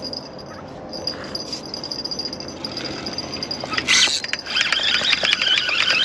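Fishing reel buzzing fast and steadily as a big fish pulls line off it, starting with a sharp rattle about four seconds in; the fish is a sturgeon that has taken the live pike minnow bait.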